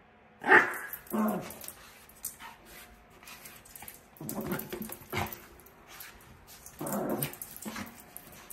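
Yorkshire terrier growling and barking in short bursts as it wrestles a stuffed chipmunk toy. The first and loudest bark comes about half a second in, and a few more bursts follow through the rest.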